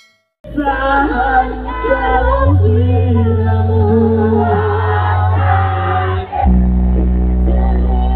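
Loud music with singing over heavy, sustained bass, played through a large outdoor sound-system rig during a sound check. It starts about half a second in, and the bass note shifts around two and a half seconds and again after about six seconds.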